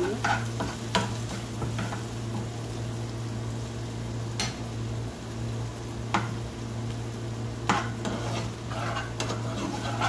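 A metal spoon stirs and scrapes in a non-stick frying pan while a little oil sizzles, with a sharp tap of metal on the pan every second or two.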